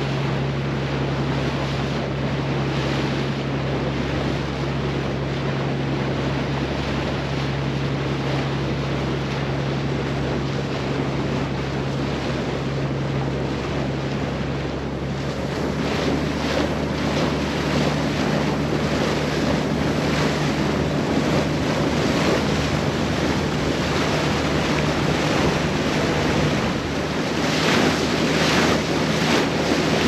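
A boat's diesel engine running at steady speed, a low hum under the rush of water along the hull and wind buffeting the microphone. From about halfway the splashing of waves grows louder and more broken.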